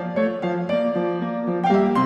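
Background piano music, a light run of single notes played at an even pace.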